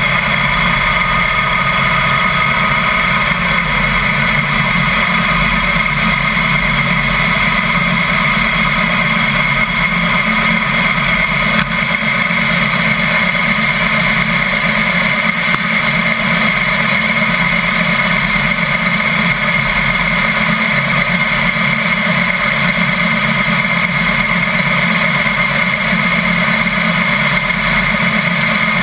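Harley-Davidson Heritage Softail's air-cooled V-twin engine idling steadily.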